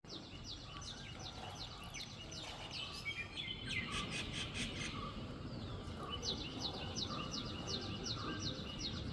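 Birds calling: a run of evenly repeated high notes, about three a second, then a burst of denser chirping about three to five seconds in, then the repeated notes again, over a steady low background rumble.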